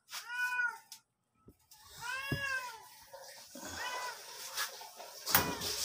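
Domestic cat meowing three times, each meow rising then falling in pitch, the third fainter. A sharp knock near the end.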